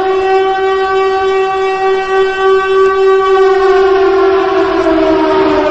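Air-raid siren sound effect: one loud, steady wailing tone that holds its pitch, then begins to sink slowly over the last couple of seconds, the warning of incoming bombers.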